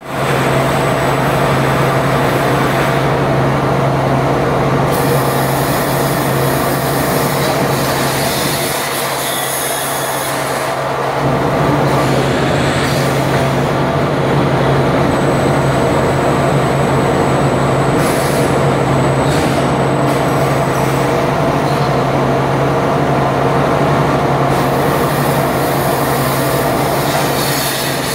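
Machinery of a fiber cement board water-cutting and board-receiving line running: a steady low hum under constant mechanical noise, easing a little about nine seconds in and picking up again.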